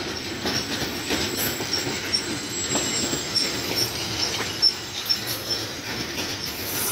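Goods wagons of the Super Parcel Express rolling past close by: a steady clatter of wheels, with clacks over the rail joints and short high-pitched wheel squeals coming again and again.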